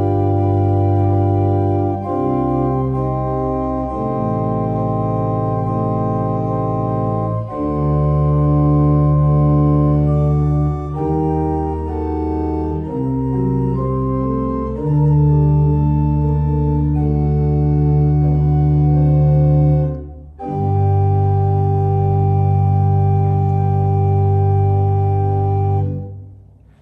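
Pipe organ playing sustained chords over a deep bass, changing every second or two, in a slow solo passage with no trumpet. There is a short break about twenty seconds in, and the last chord is released near the end.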